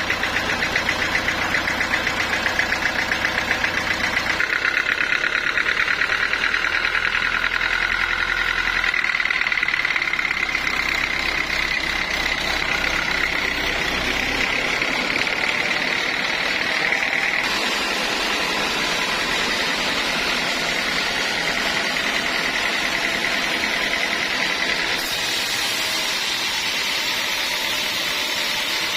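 Sawmill saw cutting a teak log: a steady high whine over a machine's low, rapidly pulsing drone. The tone shifts abruptly several times.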